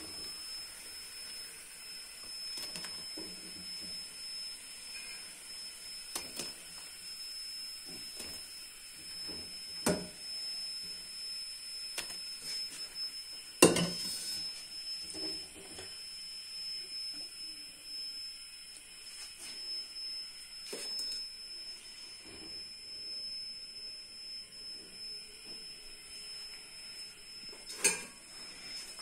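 A metal slotted spoon clinks and scrapes against a nonstick grill pan and a steel bowl as fried vadas are lifted out and dropped into the bowl. There are scattered knocks, the sharpest about fourteen seconds in and another near the end, over a steady faint hiss.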